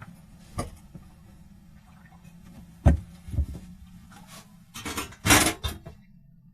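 A few separate knocks and scrapes, the sharpest about three seconds in and a cluster of louder rubbing scrapes near five seconds, over a faint steady low hum.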